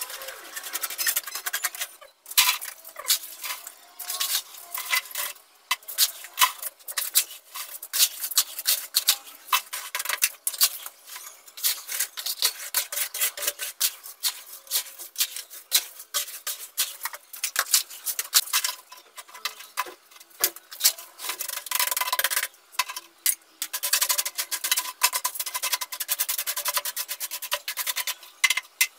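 Plastic scoop scraping, slapping and pressing wet sand-and-cement mortar on a tiled floor, in quick irregular strokes, with short pauses about two seconds in and again a little over twenty seconds in.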